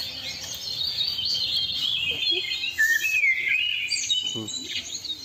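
Several small birds chirping and twittering together in quick, overlapping warbling calls, the loudest a gliding chirp about three seconds in.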